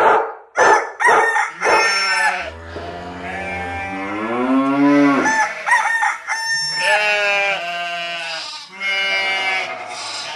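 Dogs barking a few times, then several long, wavering howls that bend in pitch and overlap.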